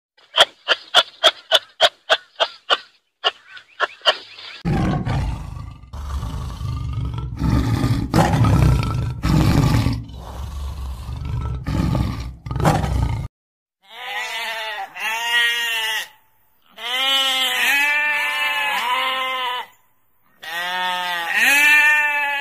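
A string of short, quick kangaroo calls, about four a second, then a tiger's deep growling roar lasting about eight seconds, then a flock of sheep bleating in repeated long, wavering calls.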